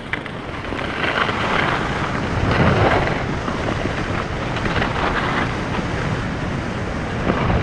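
Skis hissing and scraping over packed snow on a downhill run, with wind rushing over a lavalier mic fitted with a furry wind muffler. The noise swells about a second in and stays steady.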